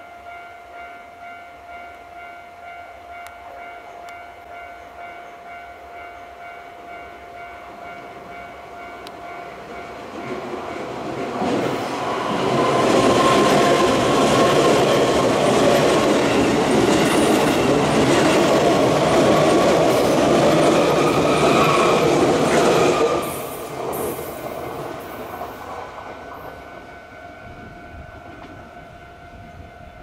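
A level-crossing alarm ringing on without a break while a Keisei AE-series Skyliner electric train approaches and passes close by. The train's pass is loudest from about 11 to 23 seconds in and then drops off sharply, and the crossing keeps ringing after it has gone.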